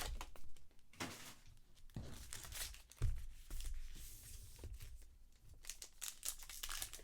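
Trading card pack wrappers being torn open and crinkled in several short bursts, with cards handled in between.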